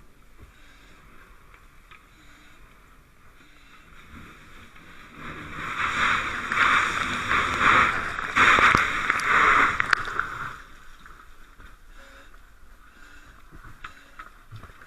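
Fire hose nozzle spraying water in a strong, hissing burst of about five seconds, starting about five seconds in, with a few sharp knocks during it.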